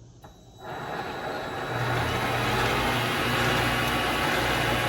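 Vevor MX400 mini lathe's motor and spindle starting up, spinning up over about a second and then running steadily with a low hum.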